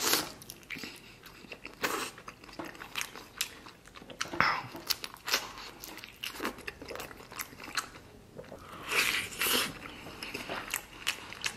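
Close-miked biting and chewing of a pork knuckle eaten by hand off the bone: irregular mouth smacks and clicks, with louder bites near the start, about 2 seconds in, about halfway and about 9 seconds in.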